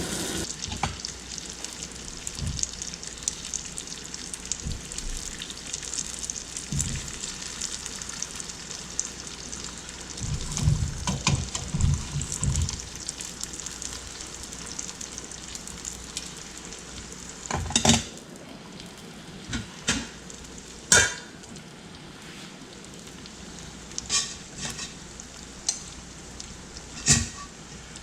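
Chicken wings sizzling and crackling in a thick, reducing sweet sticky sauce in a stovetop pan. Several sharp clinks and knocks of a utensil against the pan or plate come in the second half as the wings are lifted out.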